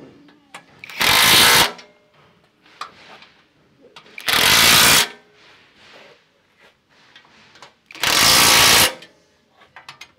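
Cordless impact wrench hammering bolts tight on a steel bash plate in three short bursts, each under a second, about three to four seconds apart, with light metal clicks between them.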